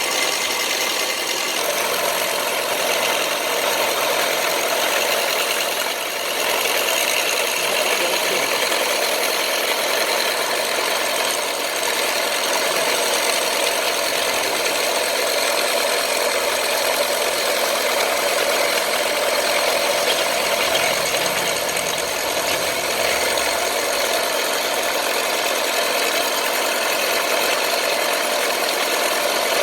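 A motor-driven metalworking power tool running steadily, a continuous mechanical noise with no break.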